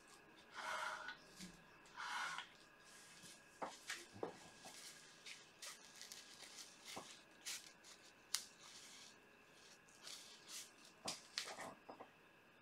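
Quiet handling sounds: two brief rustles in the first few seconds, then scattered light clicks and taps, as gloved hands move among plastic sheeting and painting tools.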